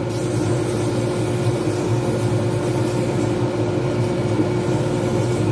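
Small lathe running steadily, a constant hum, with sandpaper held against the spinning poured-resin pen blank adding a hiss.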